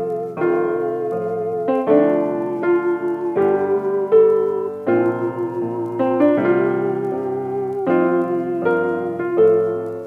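Background music: a piano or electric-piano melody with sustained chords, fading out near the end.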